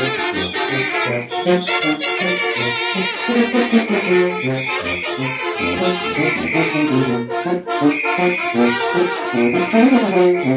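Brass band playing a dance tune, the horns carrying the melody in quick runs of notes.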